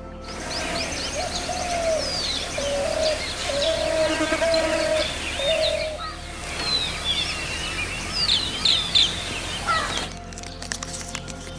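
Many forest birds chirping and calling, with a lower call repeated over and over through the first half. Near the end the birdsong gives way to background music.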